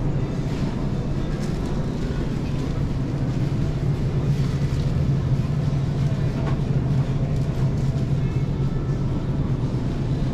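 Supermarket ambience: a steady low hum with background music and faint voices.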